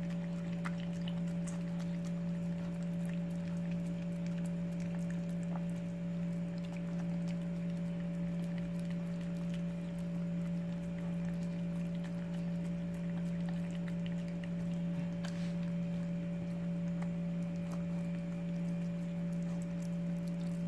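Dog licking and chewing soft durian flesh from a hand, faint wet smacks and clicks, over a steady low hum.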